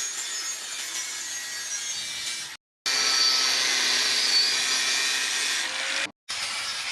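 A hand or power tool working rusted iron with a steady, noisy sound, in three short clips separated by abrupt cuts; the middle clip is louder.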